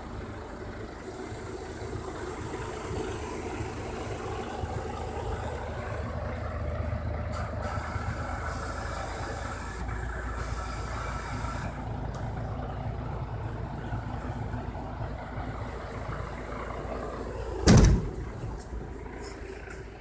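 Truck engine running steadily to drive a Fassi F210 loader crane's hydraulics during a lift, with a whine rising over it for a few seconds midway. One loud, short burst of noise comes near the end.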